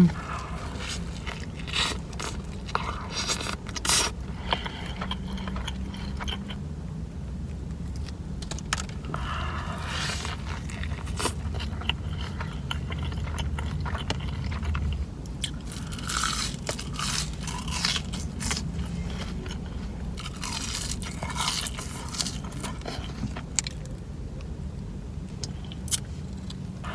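A person biting and chewing crunchy food close to the microphone: irregular clusters of crunching and clicks with short pauses between them.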